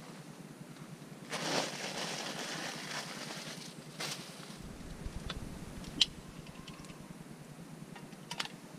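Camp-cooking handling noises: a brief rustle, then a few sharp clicks and clinks, the last pair as metal tongs touch the hanging pot. A low rumble sets in about halfway.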